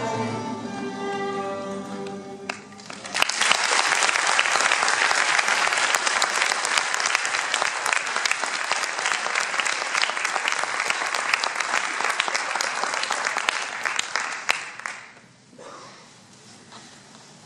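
A small vocal group with oud accompaniment ends a Persian song on held sung notes. About three seconds in, an audience bursts into applause that lasts some twelve seconds before dying away.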